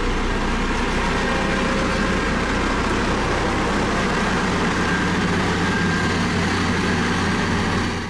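Single-drum road roller's diesel engine running steadily with a low, even hum as the machine works over a gravel road base.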